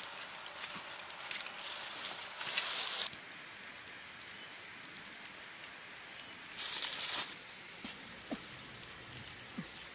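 Campfire embers under roasting fish crackling and hissing, with small snaps throughout and two louder spells of hiss, one about a second and a half in and one about two-thirds of the way through.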